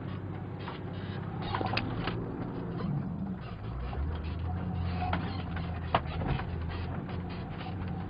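Off-road 4x4 engine running at low revs while crawling over a rough track, with the body rattling, creaking and knocking over bumps. There is a sharp knock about two seconds in and another about six seconds in, and the engine note deepens about four seconds in.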